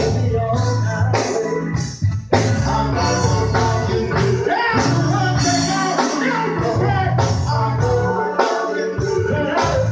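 Band music with singing over bass, guitar and a steady beat with tambourine.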